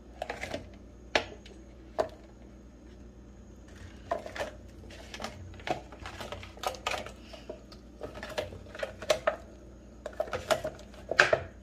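Thin plastic Easter-egg mould crackling and clicking as hands flex it and peel it away from a chocolate egg shell. The crackles come irregularly, sparse at first and busier from about four seconds in.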